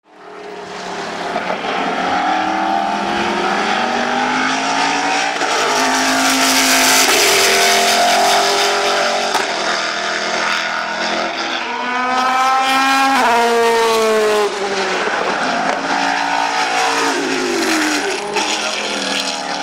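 The loud 7-litre Ford V8 of a Saleen S7-R GT1 race car running at racing speed, its pitch rising and falling through the gears. About two-thirds of the way through, the car passes by: the pitch climbs and then drops sharply.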